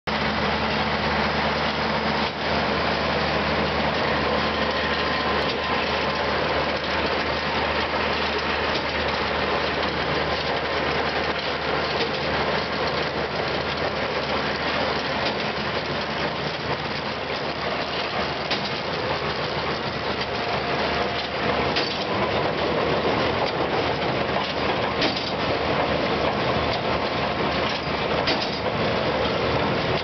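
A tractor engine running steadily while driving a Hesston 4910 large square baler with no hay in it, with a continuous mechanical clatter from the baler's moving parts.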